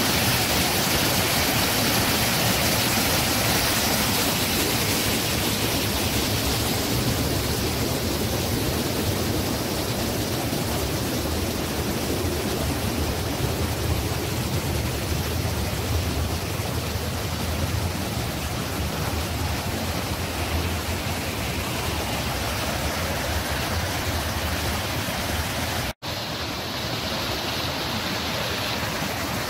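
Rushing water of a waterfall and creek rapids running high with floodwater: a steady, even roar. It breaks off for an instant near the end and then goes on slightly quieter.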